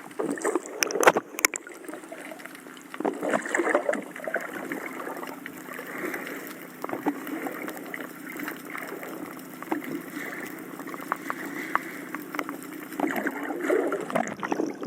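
Water sloshing and splashing in uneven swells, with scattered sharp clicks and knocks, the loudest about a second in.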